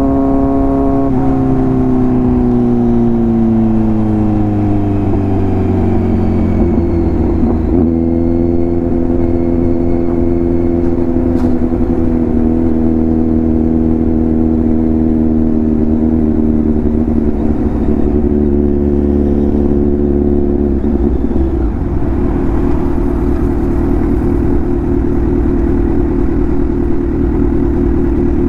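Kawasaki Z900 inline-four engine running through an aftermarket exhaust while riding. About a second in, the engine note falls in pitch for several seconds as the revs drop. It then holds one steady note at cruising revs, and about three-quarters of the way through it settles to a lower steady note.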